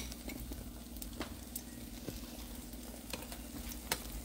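Beaten eggs frying in a pan, a soft steady sizzle, with a few light clicks of a utensil.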